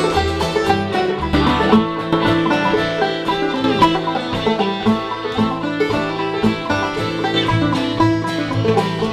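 Old-time string band playing a traditional tune: fiddle, clawhammer banjo and acoustic guitar together, with bass.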